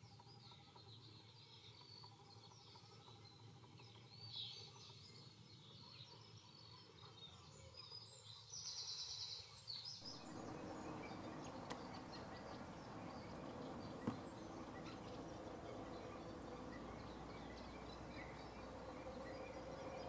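Faint outdoor wetland ambience with scattered distant bird calls and chirps, including a short rising-and-falling call about four seconds in and a brief rapid trill a little before halfway. About halfway through the background becomes a louder, fuller hiss, with a single sharp tick a few seconds later.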